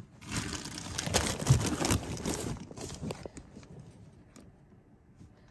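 Rustling and light knocking of things being handled at close range, a dense run of small clicks and crinkles that thins out after about three seconds and dies away to near quiet.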